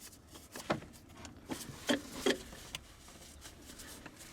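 A few short clicks and knocks of hardware being handled while the battery hold-down bar is fastened, four of them within about a second and a half near the middle.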